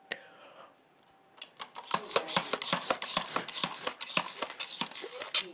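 Handling noise: rapid plastic clicking and rubbing starting about a second and a half in, with a sharper click near the end.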